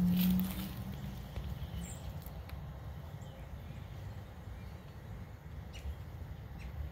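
Outdoor background noise: a steady low rumble, with a hum that is loudest at the start and fades within the first second, and a faint high chirp about two seconds in.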